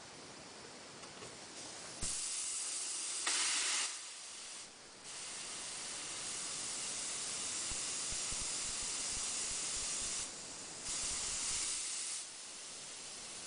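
Compressed air hissing into a car tyre from the tyre changer's inflator, topping up the tyre pressure. The hiss starts about two seconds in and stops and starts a few times, with short breaks between spurts.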